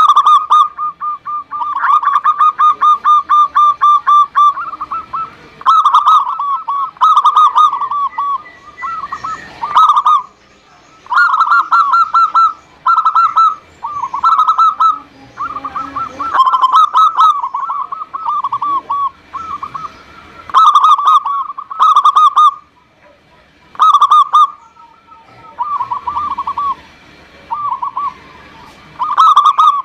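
Zebra dove (perkutut) song: a long fast run of coo notes for the first few seconds, then short phrases of quick, rolling coos repeated with brief pauses between them.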